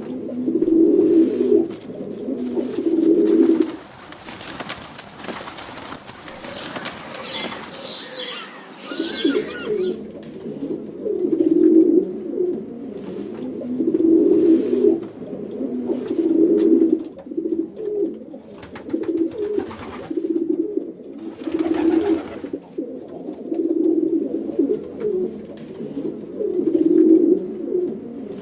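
Pigeons cooing: repeated low, throaty coos, one after another. The coos pause for a few seconds about four seconds in, when a rustling noise and faint higher calls come through, then carry on.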